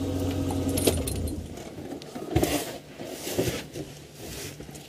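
Safari vehicle's engine running with a steady low hum, then cutting out about a second in, followed by faint rustles and clicks.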